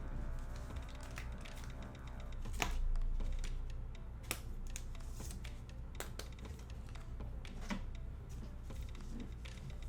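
Trading cards and pack wrappers being handled: light irregular clicks and rustles, with a few sharper ticks.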